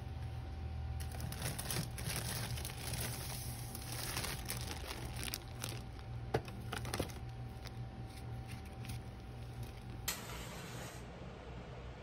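Plastic food packaging crinkling and rustling as items are handled in an open refrigerator, in scattered bursts over a low steady hum.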